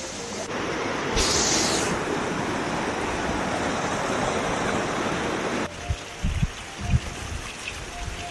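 Stream water rushing and splashing over rocks in a steady, even rush. A little before six seconds it drops suddenly to a quieter trickle with a few low bumps.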